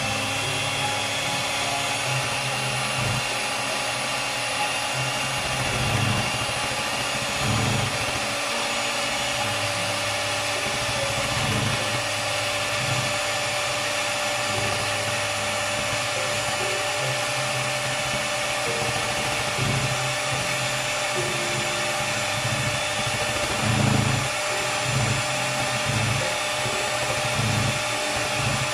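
Handheld electric mixer running steadily, its beater whipping thick quark cheese mixture in a glass measuring cup, with a few louder bumps as it is moved around.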